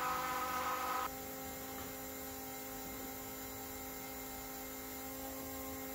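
Electric fuel pump running, a steady hum with several fixed tones as it pushes fuel around a newly built fuel-injection system. About a second in the louder, higher part of the hum drops away abruptly, leaving a quieter, even hum.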